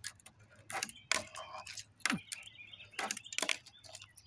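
Tech Deck fingerboard clacking on a concrete tabletop: a string of sharp, irregular clicks and taps as the tail is popped and the wheels and deck land, about eight in all.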